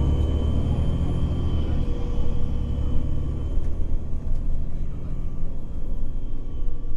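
Nova Bus LFS articulated city bus running, heard from inside the passenger cabin: a deep engine rumble with a steady high whine over it, the rumble easing a little about halfway through.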